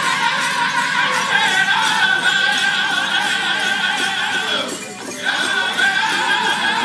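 Powwow drum group singing a chicken dance song in high voices over a steady drum beat, with dancers' bells jingling. The singing breaks off briefly about five seconds in, then resumes.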